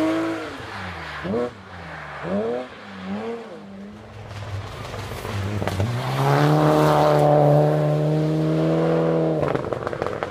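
Rally cars on a gravel stage: first an engine revving up and down through gear changes and lifts as a car drives away, then a Mitsubishi Lancer Evolution's turbocharged four-cylinder passing close, held at high revs. The loud engine cuts off abruptly about nine seconds in, followed by a short burst of crackles.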